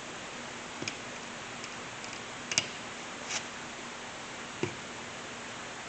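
A few light clicks and taps, about four spread over several seconds, as a ringed piston is pressed and rocked into the cylinder bore with the rings compressing into their grooves.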